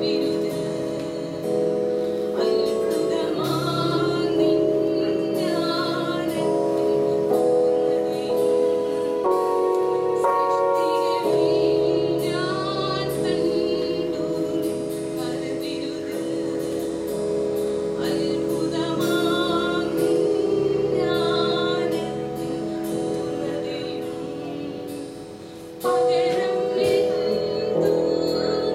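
Praise and worship music: singing voices with vibrato over held chords, dipping briefly and coming back in full near the end.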